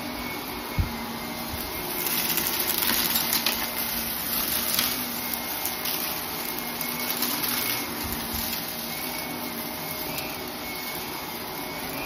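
Shark upright vacuum cleaner running over carpet: a steady motor hum with a faint high whine, louder for a few seconds about two seconds in, and a few short clicks.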